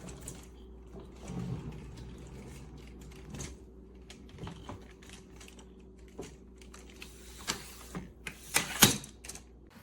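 Irregular clicks, taps and knocks with short rustles, like objects being handled, over a low steady hum. A louder quick cluster of clicks comes near the end.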